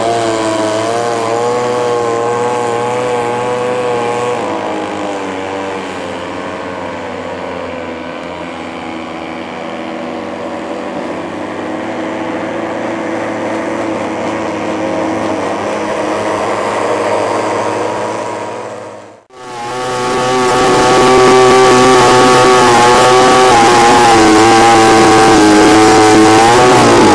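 Small engines of radio-controlled wooden model speedboats running at speed, their pitch rising and falling as they race. A little past two thirds of the way through, the sound drops out for a moment and comes back louder: one engine heard up close from on board the boat.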